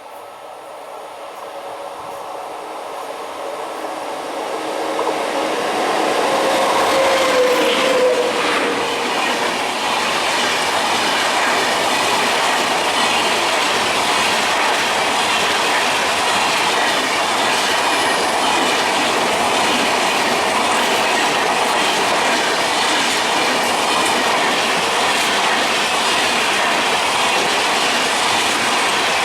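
Passenger train approaching and then passing at speed: the sound builds over the first six seconds into a steady, loud rush of wheels clattering over the rails. A drawn-out tone drops in pitch about eight seconds in, as the train draws level.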